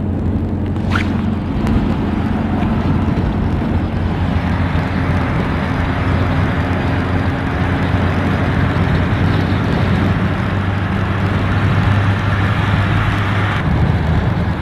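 Car driving, heard from inside the cabin: a steady low engine hum under road and wind noise, the higher hiss easing off a little near the end.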